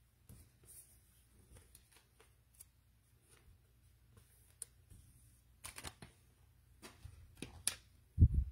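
Trading cards being handled on a table: faint rustling and light clicks of cards sliding against each other, a few sharper snaps in the second half, then a dull thump near the end.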